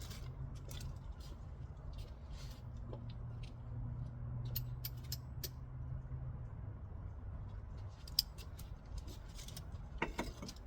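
Scattered light clicks and taps of hand tools and metal parts being handled, irregular and with no steady rhythm, over a faint steady low hum.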